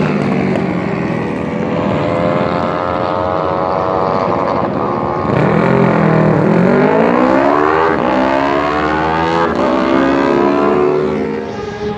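Racing superbike engines revving hard on track. The pitch climbs through the gears with sharp drops at each shift and swells louder from about halfway.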